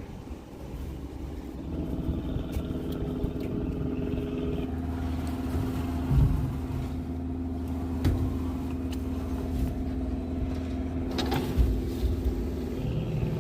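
An engine running at a steady speed, its sound coming up about a second and a half in, with a few short knocks over it.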